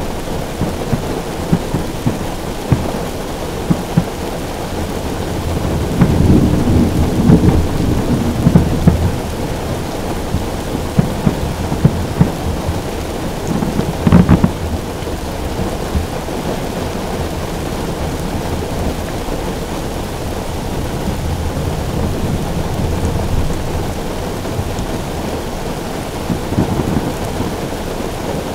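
Heavy rain drumming on a car roof, with low rolls of thunder swelling about six seconds in and again after twenty seconds, and one sharp bang near the middle.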